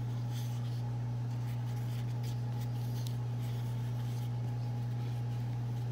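Faint soft rustling of thin filo pastry sheets being rolled up by hand, over a steady low hum.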